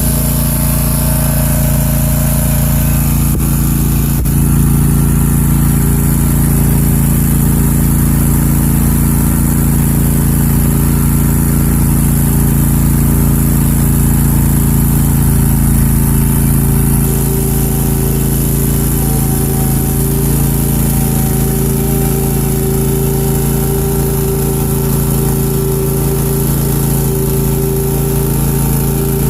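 Country Clipper zero-turn lawnmower's engine running at a steady speed.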